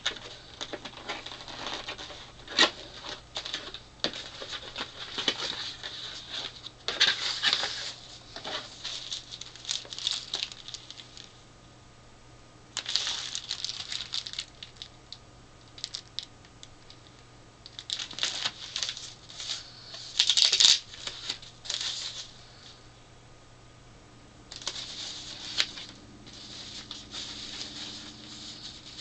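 Plastic and paper packaging rustling and crinkling in irregular bursts as a boxed portable LCD TV and its accessories are unwrapped by hand, with sharp clicks of the box and wrapping being handled and short pauses between. A faint steady hum sits underneath.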